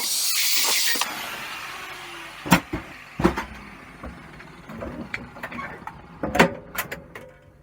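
A loud hiss that is strongest at first and fades away over the next few seconds, followed by a few sharp knocks.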